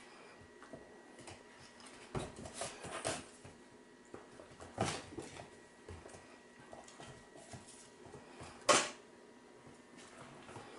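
Soft taps and scuffles of six-week-old puppies' paws and claws on a hardwood floor, a few at a time, with one sharper click about nine seconds in.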